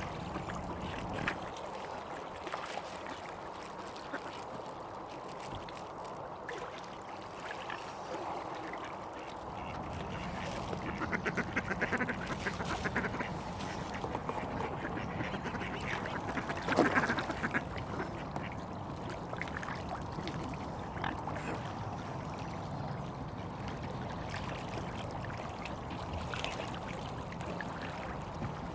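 Mallard ducks quacking in short runs of quick calls, loudest a little past the middle, over a steady background hum.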